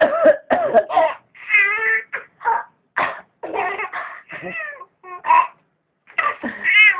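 A baby's high-pitched vocalizing in about a dozen short bursts of squeals with wavering pitch.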